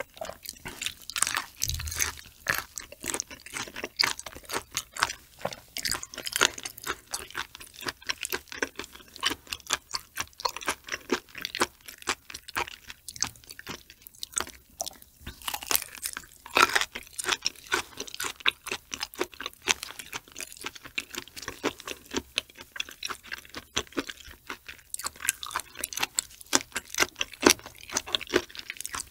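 Close-miked chewing of raw shrimp sashimi with flying fish roe, wet and sticky, with many small irregular crunches and pops as the roe is bitten.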